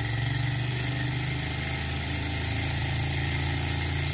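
Small Stirling engine running steadily and turning its generator with no load on it, a steady fast mechanical whir.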